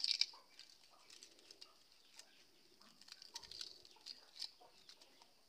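Charred, brittle leaf wrapping crackling and rustling as fingers peel it away from a leaf-roasted egg. Faint, scattered small crackles.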